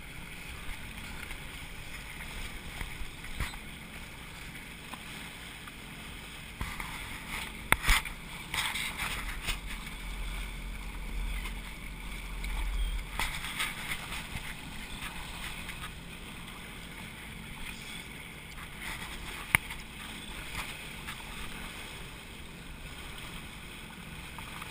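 Jet skis running on choppy sea, their engines mixed with water sloshing close by, with a few sharp knocks, one about eight seconds in and one near twenty seconds.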